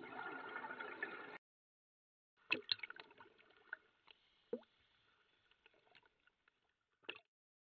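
A short stretch of steady underwater noise that cuts off abruptly, then, after a second of silence, seawater lapping and splashing around a half-submerged underwater camera housing at the surface. There are a few sharp splashes, with the last one near the end.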